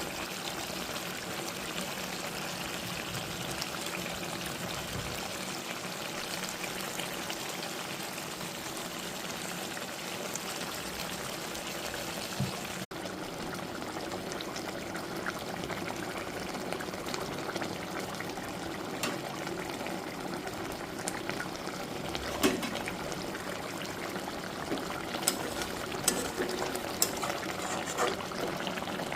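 Soybean and potato gravy bubbling in a pan: a steady boiling hiss. There is a brief break about 13 seconds in, and a few sharp clicks in the second half.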